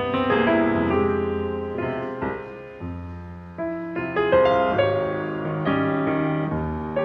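Solo piano played in concert: chords and melody notes struck in succession, each one ringing out and fading under the next.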